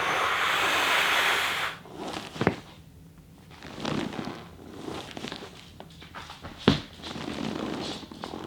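A long exhale, then quiet shuffling of a body rolling over a partially deflated volleyball, with sharp pops from the upper back between the shoulder blades; one loud crack about two-thirds of the way in stands out over a smaller click before it.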